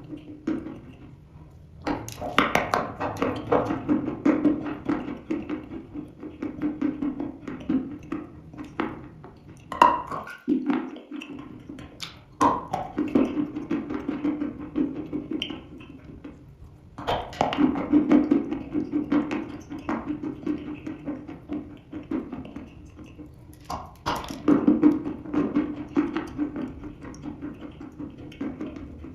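A person biting and chewing dry red chalk: crisp crunches and clicks come in clusters, with quieter pauses between bites.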